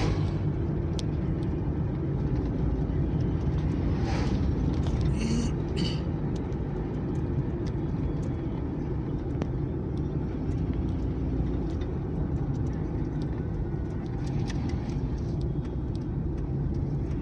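Steady road and engine noise of a car driving along a paved highway, with an oncoming vehicle rushing past about four seconds in.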